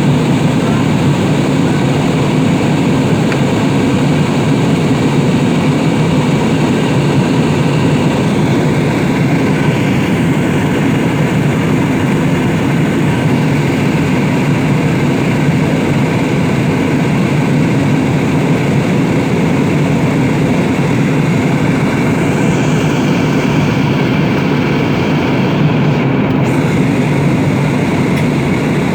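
Airliner cabin noise in flight: the engines and rushing air make a loud, steady rumble.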